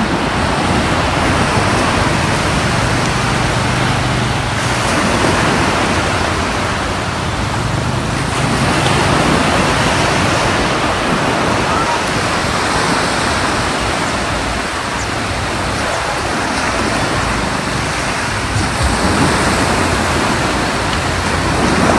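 Sea surf: small waves breaking and washing up a sandy beach, a steady noise without pause.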